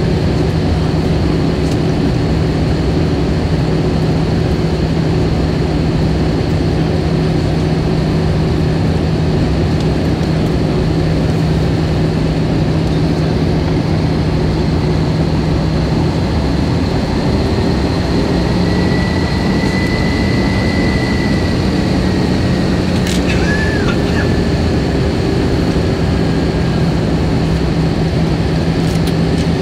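Jet airliner cabin noise heard from inside the cabin: a steady rush of air and engine drone with a constant low hum that steps up slightly about halfway through. A faint short tone and a small click come later.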